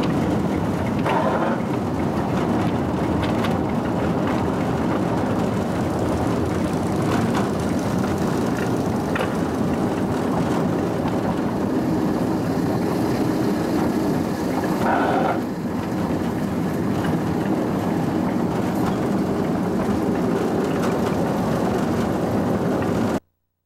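Home-built, wood-fired one-third-scale Shay steam locomotive on 12-inch gauge track, heard from the car it is pulling: a loud, steady running noise of the engine and rolling train, with two brief higher-pitched sounds, about a second in and around fifteen seconds. The sound cuts off abruptly near the end.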